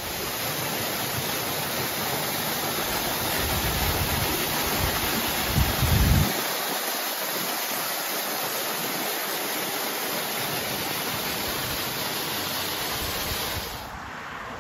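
Small roadside waterfall: a steady rush of water falling onto rock, with wind rumbling on the microphone for about the first six seconds. The water sound drops away abruptly near the end.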